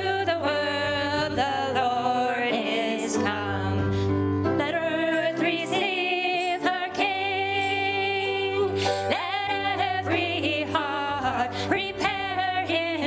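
Women singing a Christmas carol into microphones, with piano accompaniment and steady hand strokes on a cajon.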